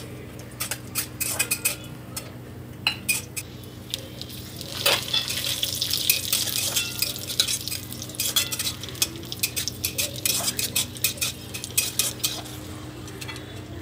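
Cashews and raisins sizzling as they fry in a little oil in a metal kadai. A spatula scrapes and clicks against the pan throughout as they are stirred, and the sizzle gets louder in the middle for several seconds.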